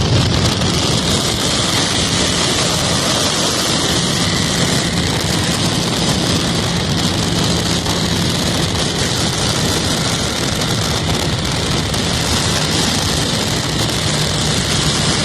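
A car engine running steadily while the car rolls along, buried under heavy wind noise buffeting the microphone.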